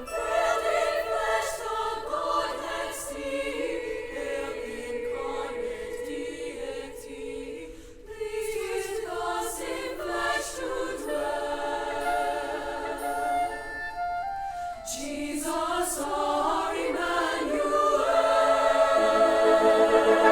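Choir singing a held, slow-moving choral passage with orchestral accompaniment, swelling louder near the end.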